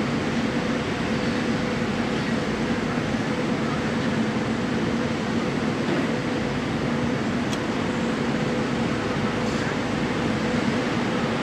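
Safetran mechanical railroad crossing bells ringing continuously while the crossing is active, over a steady background rumble.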